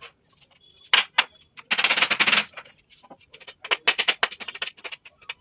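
Hammer tapping nails into wooden door-frame moulding in quick runs of light knocks, with short pauses between runs.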